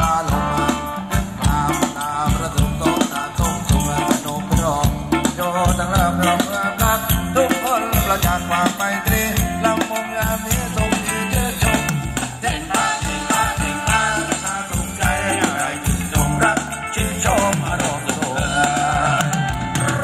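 Live band playing Thai ramwong dance music: a steady drum beat with rattling percussion under a melody line.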